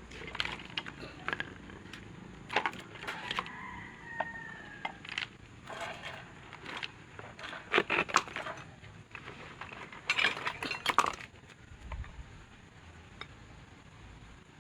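Irregular clicking, scraping and clattering of tools and small parts being handled during an electric fan motor repair, with louder clatters about eight seconds in and again about ten to eleven seconds in.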